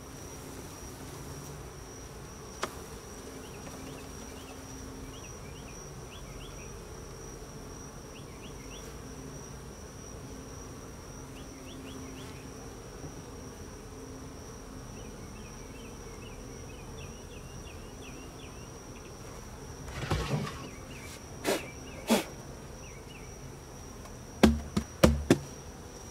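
Honey bees buzzing in a steady hum around an opened hive. A few sharp knocks come near the end and are the loudest sounds.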